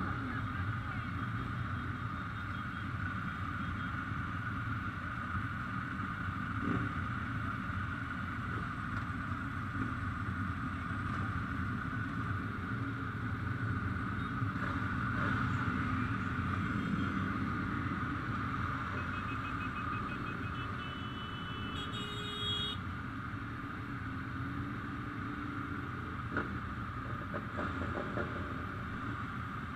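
Steady running noise of Ducati motorcycles mixed with people's voices, holding even throughout with no sharp revs.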